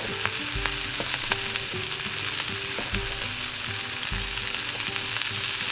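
Sausages sizzling as they fry in a pan, with light knife taps on a wooden cutting board as a green onion is chopped.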